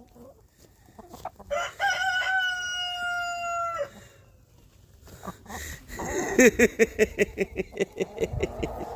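A rooster crows once, a single long held call lasting about two seconds. A second or so later come fast, repeated clucks, several a second, running to the end.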